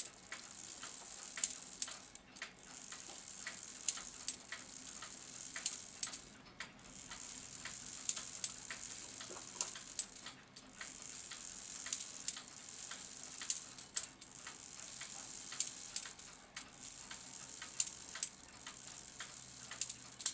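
Strike train of an early-1900s cuckoo clock movement running after being tripped: a high whirring with a steady stream of sharp mechanical clicks, in runs of a few seconds broken by short pauses.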